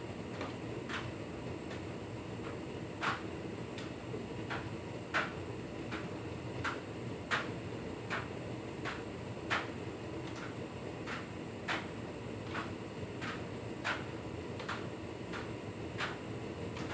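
Hotpoint Ultima S-Line tumble dryer running: a steady motor and fan hum with light clicks and knocks repeating as the load tumbles in the turning drum, the loudest about every two seconds.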